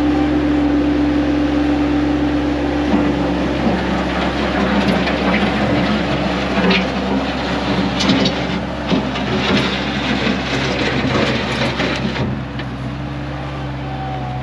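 An engine running steadily, its pitch dropping about three seconds in, with a series of knocks and rattles through the middle.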